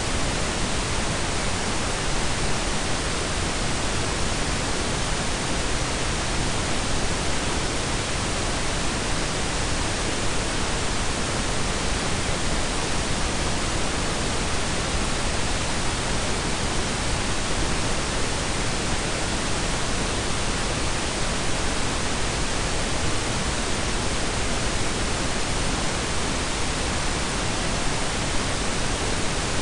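Steady synthetic blend of pink and brown noise: an even, unchanging hiss with a low rumble, with no other sound.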